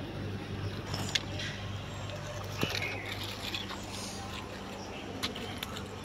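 Scattered small clicks and rattles of plastic toy vehicles and pebbles on gravel, three sharper clicks standing out, over a steady low hum.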